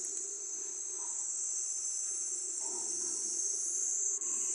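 Chana dal pakoras dropped by hand into simmering curry gravy in a large aluminium kadhai, with a few soft plops. A steady high-pitched hiss runs throughout and is louder than the plops.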